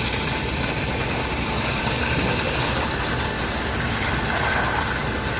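Concrete pump's engine running steadily.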